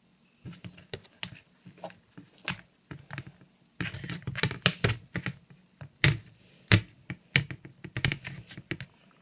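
Knife tapping against a plate while cutting cooked bacon into small pieces: irregular clicks and taps, quicker and louder from about four seconds in.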